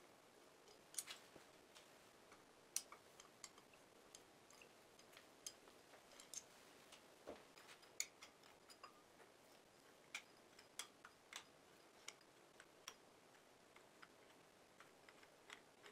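Faint, irregular metallic clicks and ticks of socket head cap screws being loosened, backed out and handled at a hoist motor's brake disc.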